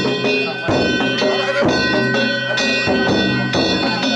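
Danjiri festival music (narimono): taiko drum strokes about once a second over the steady ringing of struck kane gongs.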